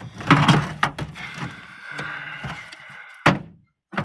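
Knocks and clatter of parts of a POS computer unit being handled and set down on a work surface, then a scraping sound and one sharp click.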